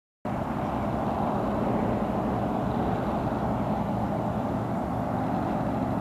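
Steady low rumbling background noise, even throughout, with no bird calls.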